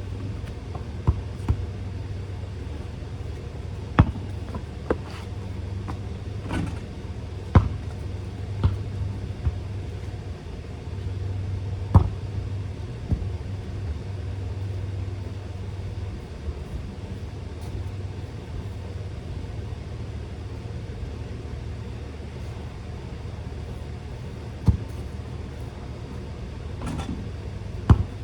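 A basketball bouncing and striking now and then, about a dozen sharp, irregular thuds, the loudest about 4, 7.5 and 12 seconds in, over a steady low rumble.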